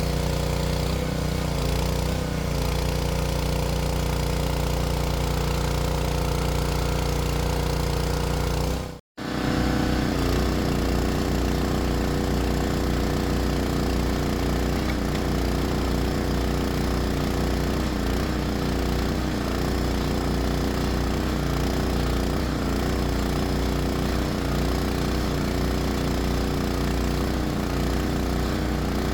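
Small single-cylinder Predator 212 gasoline engine running steadily under load, driving the hydraulics of a homemade mud-rotary well-drilling rig. The sound cuts out for an instant about nine seconds in, then carries on.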